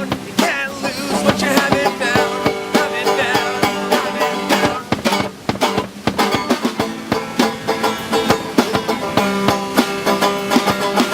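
Acoustic band playing a song live, with a picked banjo over acoustic guitar and a steady plucked rhythm.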